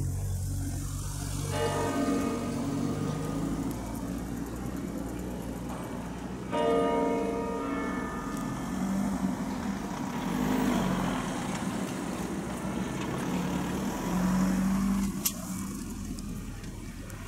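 Slow electronic music: low sustained bass notes that shift in pitch, under a bell-like chime chord that sounds twice, about one and a half and six and a half seconds in.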